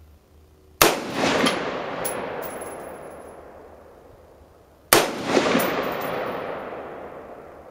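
Two single rifle shots from a DPMS M4 carbine (AR-15, 5.56 mm), about four seconds apart. Each sharp crack rolls away in a long echo lasting some three seconds, with a thin metallic ringing after it.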